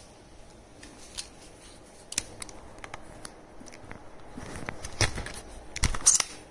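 Handling noise from the recording phone being picked up and moved: scattered clicks and rustles that grow busier, loudest in a cluster of knocks about five to six seconds in.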